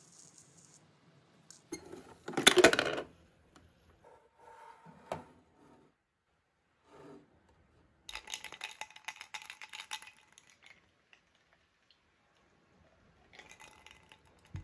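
Clinks and clatter of a glass with ice and small kitchen items being handled. The loudest clatter comes about two and a half seconds in, with a few lighter knocks after it and a longer stretch of rattling about eight seconds in.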